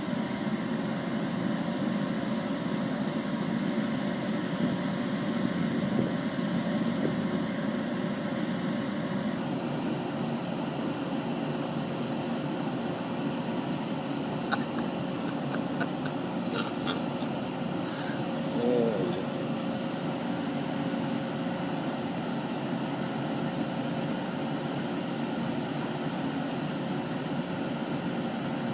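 Hydraulic excavator's diesel engine running steadily, with a constant low hum and a steady tone over it. A few sharp clicks and knocks come around the middle, and a short wavering squeak comes shortly after.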